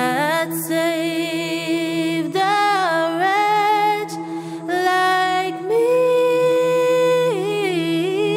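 Soundtrack music: a woman's voice singing a slow, wordless hymn-like melody with vibrato and gliding notes, over a steady held drone.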